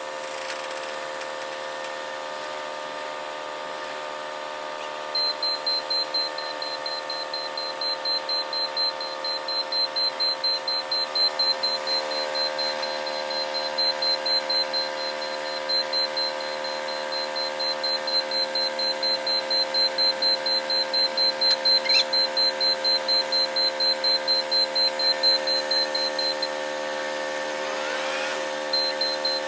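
Forklift running with its engine droning steadily while its warning alarm beeps rapidly and repeatedly; the beeping starts about five seconds in, pauses briefly near the end, then starts again.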